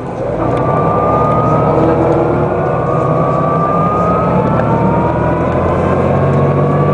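Den Oudsten Alliance B96 city bus heard from inside, its diesel engine and ZF automatic gearbox pulling under load. After a brief dip at the start as a gear change completes, the engine comes back on power. Its pitch and a high whine rise slowly and steadily as the bus accelerates.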